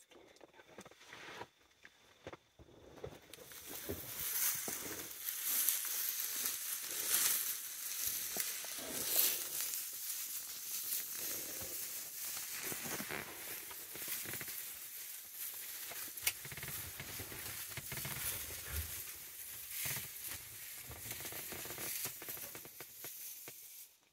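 Handling noise on a phone's microphone: a steady hiss of rubbing and crackling with many small clicks, starting about three seconds in.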